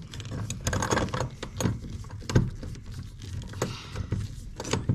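Irregular clicks, taps and rattles of small metal hardware and hand tools being handled while screws are set for a door-closer bracket.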